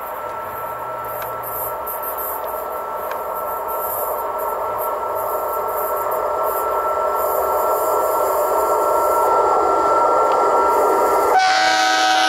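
CFR class 40 electric locomotive hauling an InterCity train approaching at speed, a steady hum and rail noise growing louder. About a second before the end, the locomotive's horn sounds in greeting with a strong, steady chord.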